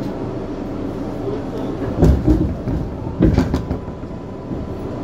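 Interior of an R142A subway car running, a steady rumble of the car, with two brief clusters of heavy clunks and rattles about two seconds and about three seconds in.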